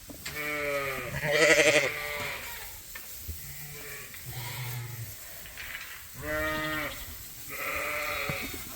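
A flock of Poll Dorset sheep bleating, about five separate calls one after another, the loudest about a second and a half in with a wavering tremolo. The ewes and lambs are calling to find each other after their pens have been merged into one large group.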